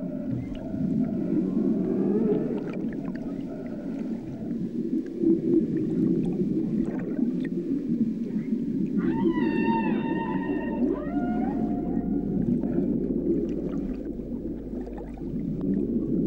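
Humpback whale calls heard underwater: pitched cries that glide up and down over a steady low water noise. The clearest, a rich bending call, comes about nine seconds in, with fainter gliding calls earlier.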